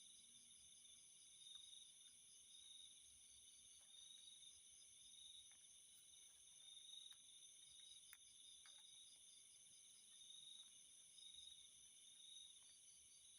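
Faint night chorus of crickets and other insects: steady high-pitched trills that swell and fade, with a rapid pulsing chirp coming and going and a few faint clicks.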